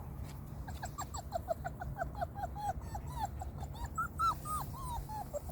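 Bernese Mountain Dog puppy whining in a quick run of short, high cries, about four or five a second, pitched higher around four seconds in.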